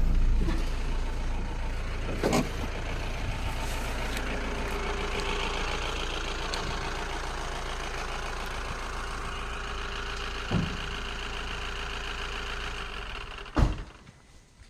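A vehicle engine running steadily and slowly fading, with a couple of sharp knocks. Near the end there is a loud thump, and the engine sound drops away.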